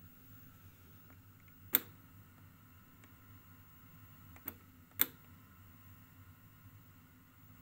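Mechanical piano-key control buttons of a National NV-7500 top-loading VCR being pressed: three sharp clicks, a loud one about two seconds in, then a softer one and another loud one close together around the five-second mark.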